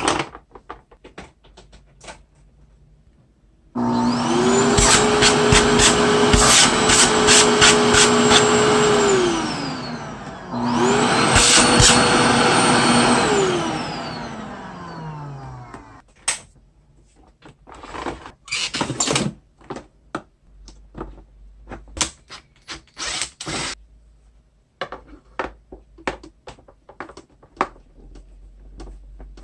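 Samsung VC-BK650M vacuum cleaner motor switched on twice: each time it spins up to a steady high whine, runs (a longer run, then a shorter one) and winds down with a falling pitch. Scattered clicks and knocks of handling follow.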